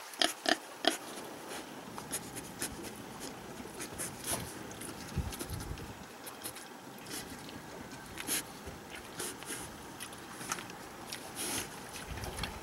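A pig's few short grunts in the first second, then soft rustling and scraping as it noses through its wood-shaving bedding.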